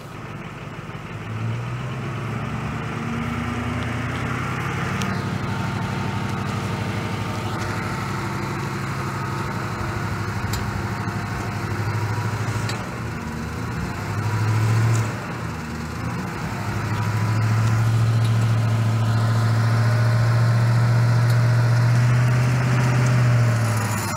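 Ford F-150 pickup engine running under load as the truck pulls itself out of a mud hole, its turning rear wheel winding winch line onto a drum bolted to the wheel. The engine note comes up about a second and a half in, dips briefly around the middle, and is steadiest and loudest over the last several seconds before easing off.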